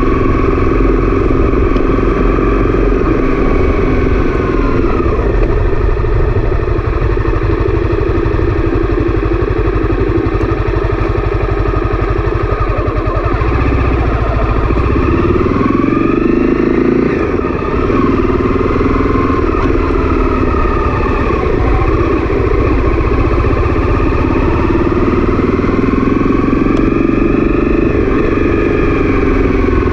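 Honda CB300F's single-cylinder engine running while the bike is ridden, its pitch rising and falling with throttle and gear changes, with a brief dip in level about halfway through.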